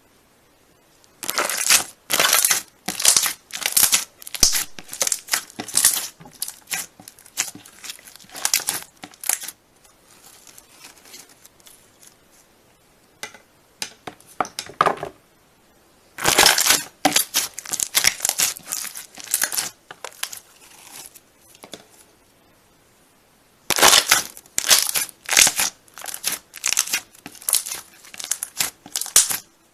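Slime being squeezed and worked by hand, giving runs of quick crackling pops. There are three long runs, with a quieter stretch of faint scattered crackles in the middle.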